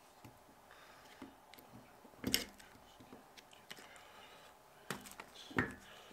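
Metal clicks and knocks of brake pads being fitted by hand into a rear brake caliper, with two louder knocks about two seconds in and near the end.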